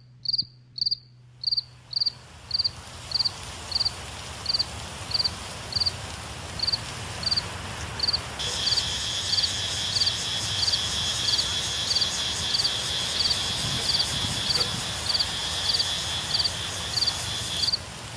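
Insects calling: a short, high chirp repeats steadily about one and a half times a second. About eight seconds in, a loud, rapidly pulsing buzz joins it and then cuts off suddenly near the end.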